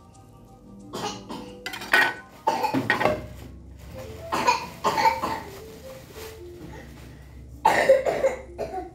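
Plastic wrap crinkling and new cookware knocking as pots and a glass lid are unwrapped and handled, in several short, loud bursts over faint background music.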